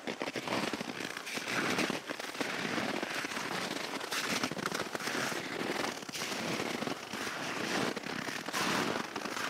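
Crunching and rustling of people walking: boots on a snow-dusted, frozen trail and clothing brushing, a dense irregular crackle that swells and eases with the steps.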